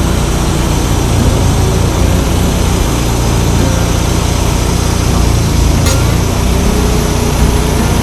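Wood-Mizer LX150 sawmill's engine running steadily under load as its band blade cuts through a large white oak log.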